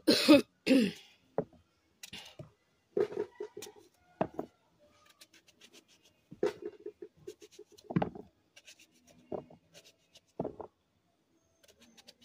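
A person coughs twice right at the start. After that come scattered soft, short sounds while a knife cuts breadfruit into small cubes by hand.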